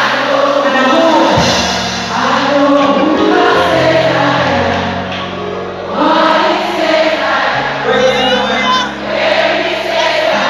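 Live gospel worship music: a choir singing over a band with sustained bass notes that change every second or two.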